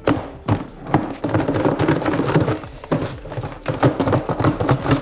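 Lidded container of beef in biltong marinade being sealed and handled: a quick, irregular run of knocks and thumps as the lid is pressed down and the container moved.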